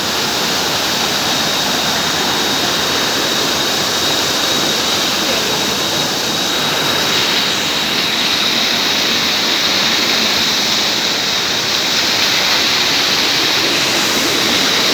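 Waterfall's steady roar of falling water, with a thin steady high tone running over it.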